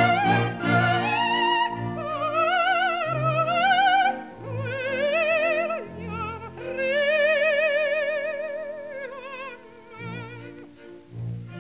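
Operatic soprano singing with a wide vibrato over orchestral accompaniment, in a 1929 recording. Rising phrases lead to a long held note in the middle, followed by a quieter stretch near the end.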